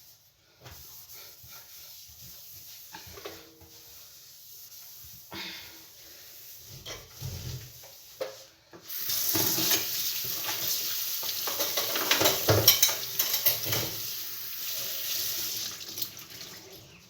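Dishes being washed in a kitchen sink, with knocks and clinks of crockery. About halfway through the tap is turned on and runs hard into the sink, louder than anything else, then stops near the end.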